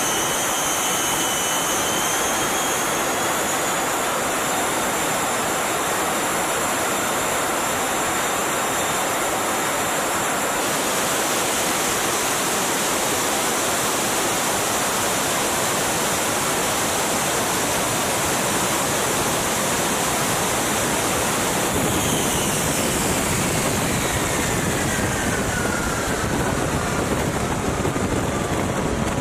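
The Shockwave jet truck's three jet engines run at full power on a run, a loud steady roar with a high turbine whine. About 22 seconds in the whine starts to fall steadily as the engines wind down.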